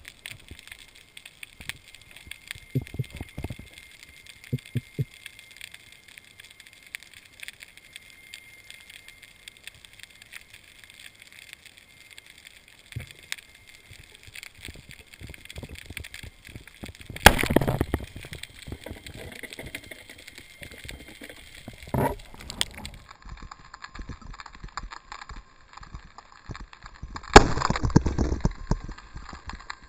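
Underwater ambience of steady crackling clicks, with a loud sudden thump about seventeen seconds in and a smaller knock a few seconds later. Near the end a band-powered speargun fires: a loud crack followed by a short rush of churned water.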